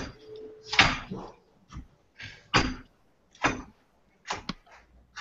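Kitchen knife chopping red bell pepper on a wooden cutting board: about six sharp knocks of the blade on the board, spaced irregularly about a second apart, two in quick succession near the end, as the pepper is diced into small pieces.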